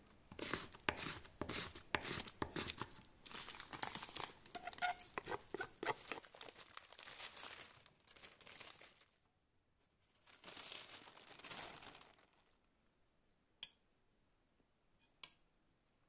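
A knife scraping curls off a bar of dark chocolate in quick repeated strokes. About ten seconds in, a shorter stretch of baking paper rustling, and near the end two light clicks.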